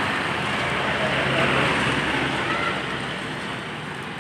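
Steady rushing noise of nasi goreng being cooked at a street stall: the wok's gas burner and rice frying, mixed with road traffic. It eases slightly near the end.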